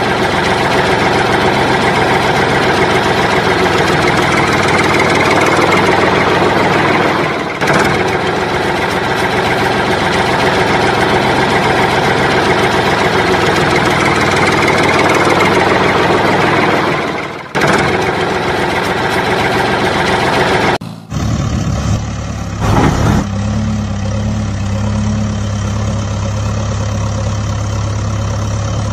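Heavy truck engine sound effect laid over the toy footage: a loud, dense engine sound that changes suddenly about three-quarters of the way through to a lower, steady idling hum.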